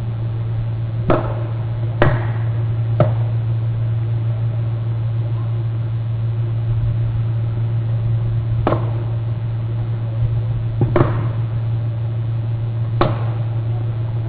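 A steady low electrical hum on a nest camera's microphone, broken by six sharp clicks or knocks: three about a second apart near the start, then three more spread through the rest.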